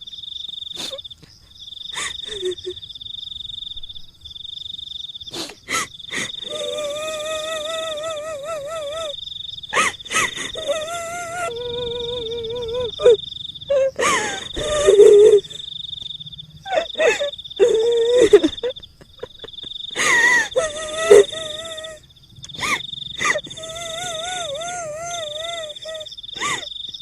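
Horror sound effects of ghostly wailing: several long, trembling, wavering moans, some sliding downward, over steady chirping of crickets, with sharp clicks in between.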